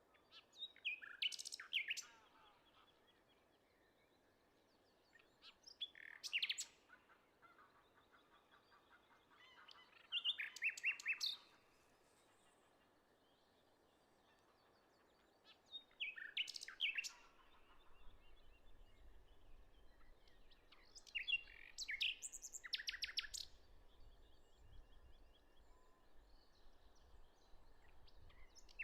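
A songbird singing, repeating a short song phrase about every five seconds, several of them ending in a rapid trill, with fainter bird notes between the phrases.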